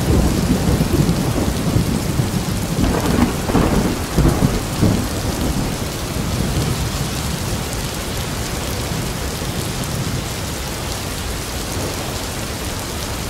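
Thunderstorm: rain falling steadily, with thunder rumbling at first and a louder peal about three to five seconds in, then only the steady rain.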